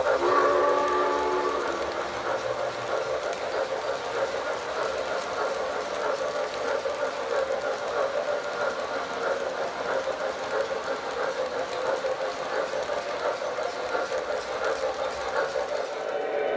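Cars of an O-gauge three-rail model freight train rolling and rattling steadily over the track, with a model-train whistle fading out over the first second or so.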